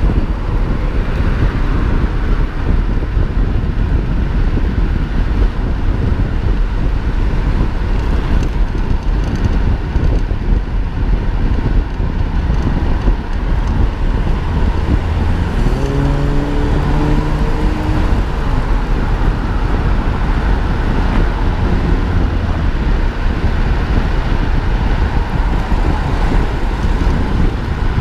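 Steady wind rumble on a bicycle-mounted camera's microphone at about 50–58 km/h, mixed with road traffic noise. About halfway through, a pitched hum that rises and then holds for two or three seconds comes from a passing vehicle.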